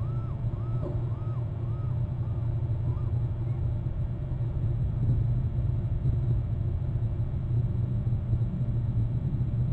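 A steady low rumble. During the first three seconds, a run of short, arching whistled notes repeats about twice a second and fades away.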